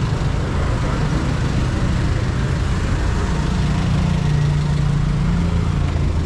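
Suzuki Raider 150 motorcycle engine idling steadily, its low note growing a little louder about three and a half seconds in.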